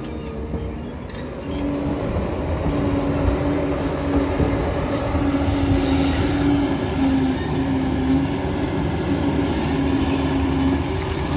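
Liebherr 746 crawler dozer's diesel engine running: a steady low rumble with a humming whine that breaks off and comes back every second or so, growing a little louder about a second and a half in.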